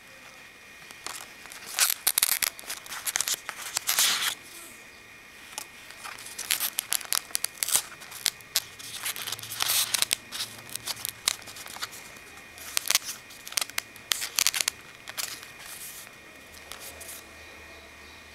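Stiff paper cut-outs and card pages rustling and crinkling as they are lifted, flapped and turned by hand, in short irregular bursts.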